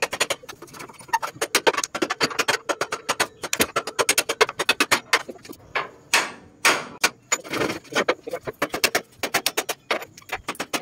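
Hand hammer beating on steel of a truck chassis: quick, irregular runs of sharp metal-on-metal blows, several a second.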